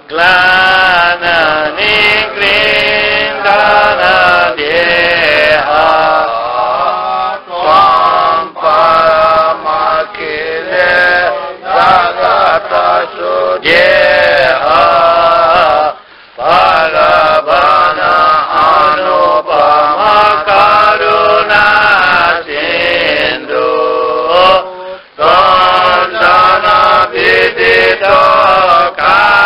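A man's voice chanting a Sanskrit devotional verse to a slow melody, in four long sung lines with brief breaks between them.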